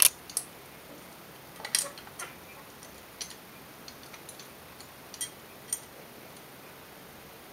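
Sharp metal clicks and clinks, a handful spread over several seconds, as small steel parts of a vise end stop are fitted by hand onto a milling-machine vise. The loudest come right at the start and just under two seconds in.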